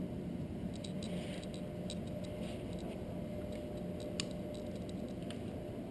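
Steady whirr of a newly built desktop PC's fans running, with a faint steady tone through it. Several light clicks and scratches come over it, the sharpest about four seconds in.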